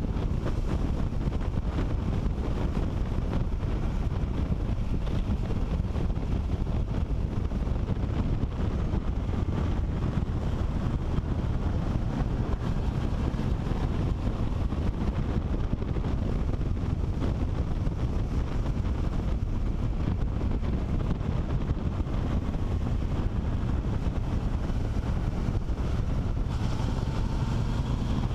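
Wind rushing over a helmet-mounted microphone on a moving motorcycle, with the engine running underneath at road speed. Near the end a faint engine tone glides up and down.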